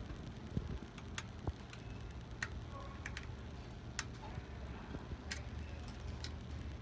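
Light metallic clicks and ticks, scattered irregularly, of an Allen key and spanner against the steel of an underpinner's wedge pusher as the spring axle's nut is tightened, over a steady low hum.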